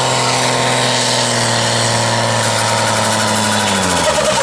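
Competition pulling tractor's engine running loud and steady, then its pitch falls over about the last second as the engine slows.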